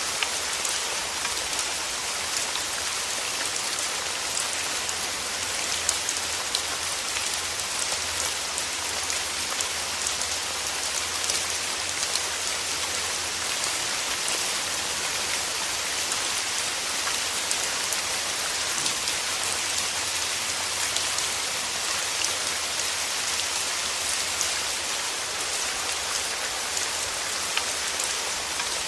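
Steady rain falling on a surface, an even hiss with many small drop ticks and no change in intensity.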